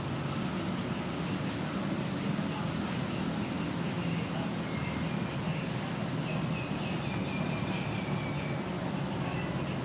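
Outdoor ambience: a steady low hum with rows of short, high-pitched chirps repeating a few times a second, fading out midway and returning near the end, and a thin high whine in between.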